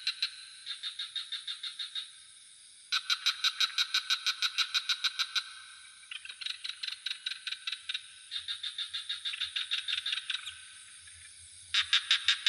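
Frogs calling in fast, evenly pulsed trills, about seven pulses a second, in bouts of a couple of seconds with short gaps between, over a steady high-pitched insect drone.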